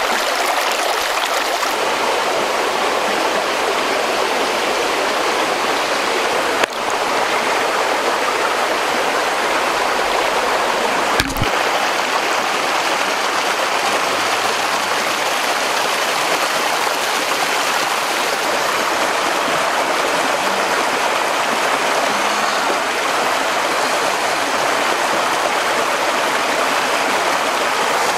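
Shallow stream rushing and splashing over rocks in a steady wash of water, with two brief clicks, about seven and eleven seconds in.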